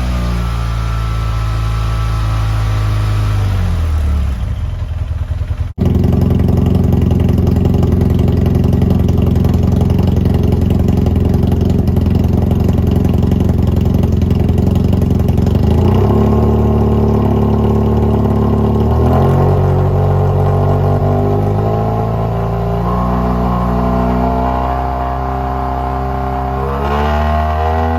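BMW F800R's parallel-twin engine running through a Delkevic oval carbon-fibre silencer, its pitch shifting between engine speeds. It drops about four seconds in, cuts out abruptly for a moment just before six seconds, holds steady, then steps up in pitch around the middle and rises again near the end.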